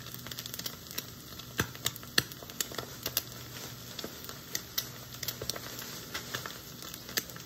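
Eggs frying in butter in a stainless steel pan, spitting and crackling with irregular sharp pops, about two a second, over a faint low steady hum.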